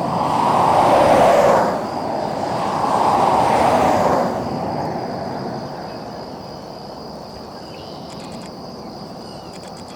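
Road traffic: two vehicles passing one after the other, their tyre and engine noise swelling and fading, then a steady distant traffic hum.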